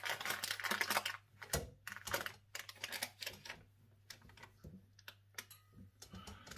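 Small scrapes and clicks of a knife and the metal tin base against a wire cooling rack as a fruit cake stuck to its base is worked loose. A dense run of scrapes in the first second, then scattered clicks.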